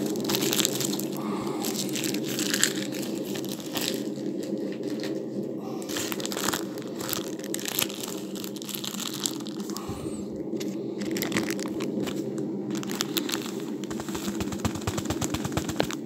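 Irregular crackling and crinkling clicks, close and scattered throughout, over a steady low hum.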